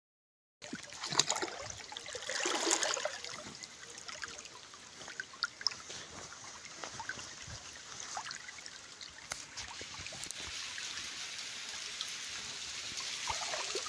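Muddy irrigation water flowing and trickling along a field channel, with a few small knocks and clicks over it.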